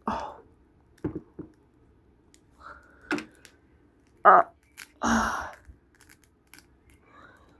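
Scattered clicks, cracks and short scraping crunches from the broken glass screen of a Samsung Galaxy A5 (2016) being pried and chipped out of the phone's frame with a tool; the loudest crunches come a little past the middle.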